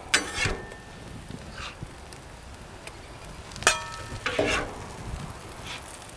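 Food sizzling on a Blackstone flat-top griddle, with a few clinks and scrapes of a metal utensil; one clink about halfway through rings briefly.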